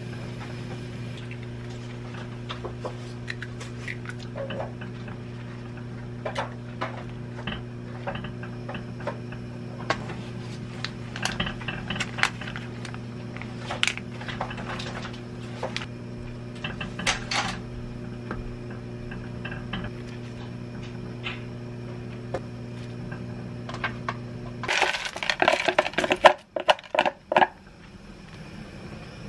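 Stew cooking in a pot on a gas stove: a steady low hum under scattered light clinks and taps from a spoon and the pot. About 25 seconds in, the hum stops and a short burst of loud crackling clatter follows.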